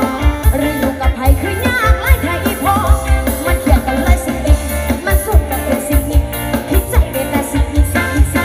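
Music with singing played loud through a DIY speaker stack of two OD15 subwoofer cabinets and a twin-driver top box, with a heavy bass beat thumping several times a second.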